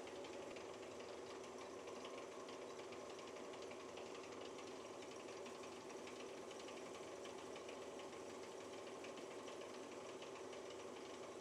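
Metal lathe running steadily while turning a bar down to diameter, an even hum that does not change.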